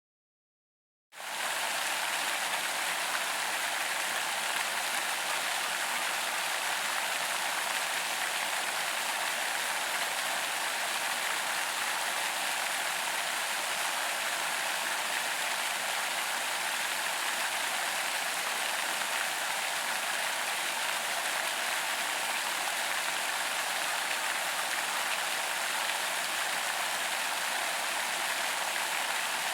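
Large pond fountain: water spraying up and splashing back onto the pond surface in a steady, even hiss and patter. It starts abruptly about a second in and runs on unchanged.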